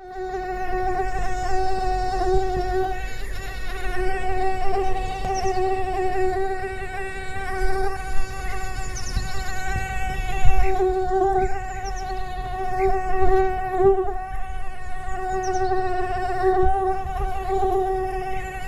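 Mosquito buzzing in flight: the steady whine of its wingbeats, holding one pitch throughout and swelling and fading a little in loudness.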